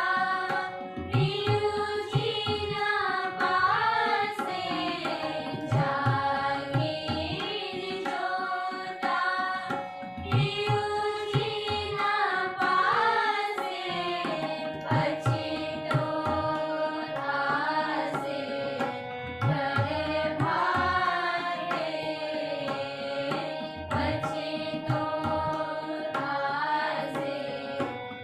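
A group of women singing a devotional bhajan together over a harmonium's held notes, with a hand drum beating a steady rhythm.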